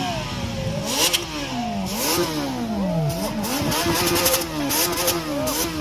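Kawasaki Z900's inline-four engine revved through a short-can aftermarket slip-on exhaust in repeated blips, its pitch rising and falling about five times, with sharp crackles between revs. The sound is loud enough that it 'took the breath away' of those nearby.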